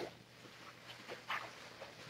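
A few faint, short breathy snuffles from sleeping newborn kittens, clustered from about a second in.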